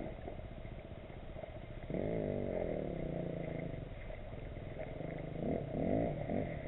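Fly reel's ratchet buzzing as a hooked fish pulls line off the spool, with a sudden run about two seconds in that falls in pitch as it slows, then two shorter runs near the end.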